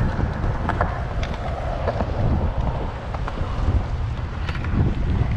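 Wind buffeting the microphone of a riding cyclist: a loud, uneven low rumble with scattered short clicks.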